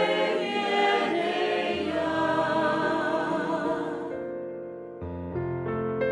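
A choir singing a hymn over sustained keyboard chords. The voices stop about four seconds in, leaving the held chords, which change to a new chord about a second later.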